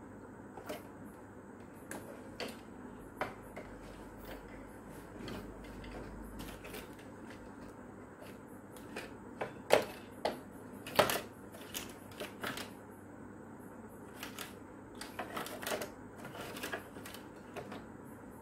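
Scattered plastic clicks and knocks as the casing and parts of an old rechargeable fan are handled and taken apart, with two louder knocks near the middle and a burst of quicker clicks near the end.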